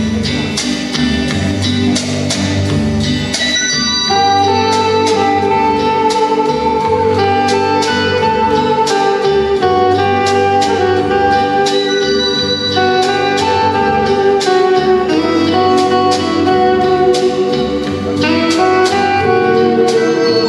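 Instrumental music with a steady beat, a bass line and a held melody line that moves in long notes.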